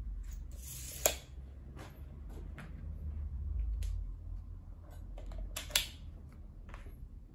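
A hand glass cutter scoring a sheet of wired glass: a short scratchy hiss that ends in a sharp click about a second in. Scattered small clicks and taps of hand tools being handled follow, with another sharp click near six seconds.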